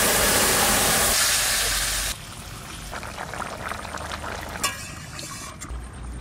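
Hot oil in a wok hissing and sizzling loudly as a liquid curry is poured onto the tempering spices, sending up a burst of steam. It cuts off suddenly about two seconds in, leaving quieter simmering and a single sharp click near the end.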